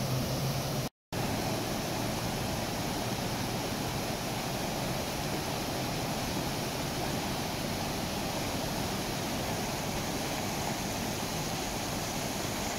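Steady rush of muddy floodwater pouring across and over the edge of a road. The sound cuts out completely for a moment about a second in.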